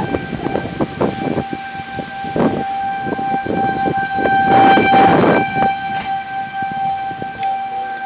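Outdoor tornado warning siren sounding a steady held tone. Irregular rushes of noise run beneath it, the strongest about five seconds in.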